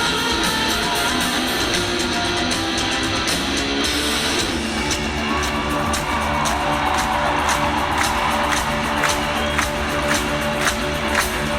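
Rock band music with guitar, heard in a large hall with faint crowd noise. The arrangement changes about four seconds in, and regular drum hits run on from there.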